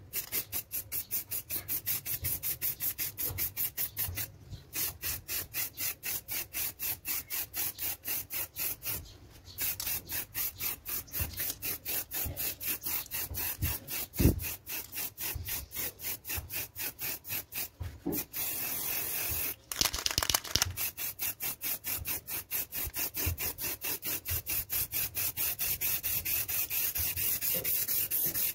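Aerosol can of clear lacquer spraying onto a painted scooter panel: a hiss coming in quick even pulses, about three a second, as the can is swept back and forth, with a few short breaks and one longer unbroken spray about two-thirds of the way in.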